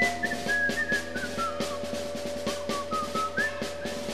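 Instrumental passage of a Japanese rock song: a high whistled melody sliding between notes over fast, steady snare drumming and a held lower note.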